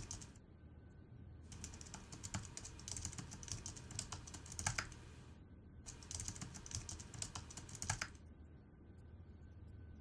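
Typing on a laptop keyboard: two runs of quick keystrokes, the first starting about a second and a half in, the second stopping about two seconds before the end, with a few harder key presses among them.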